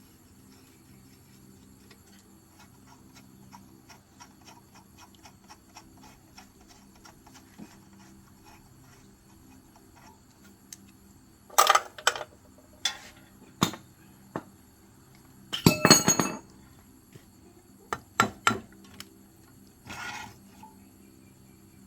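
Sharp metallic clanks and clinks of steel parts or tools striking metal, irregular and about a dozen in all, the loudest a quick cluster partway through. They follow several seconds of faint, quick ticking.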